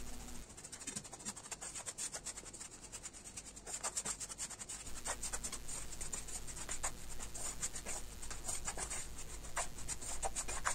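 Wooden spatula scraping and pressing crumbly, set sugar against a nonstick pan in quick, irregular strokes with small clicks. The cooked sugar syrup has set solid and is being broken down into powdery boora.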